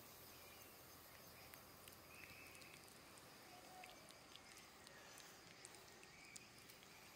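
Near silence with scattered faint soft clicks: a cat licking a paste treat from a squeeze tube.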